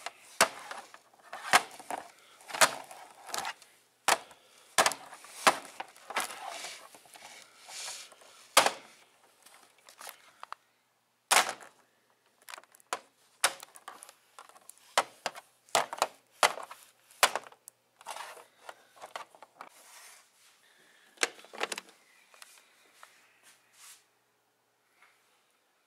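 Plastic action figures clacking and tapping against each other and against a hard plastic toy playset as they are handled, an irregular run of sharp knocks that thins out near the end.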